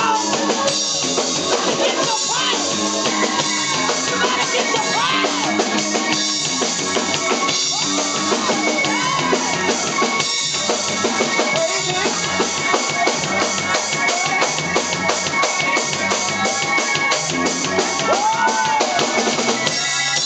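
Live gospel worship band music with a drum kit keeping a steady beat of kick, snare and rimshots under melodic parts.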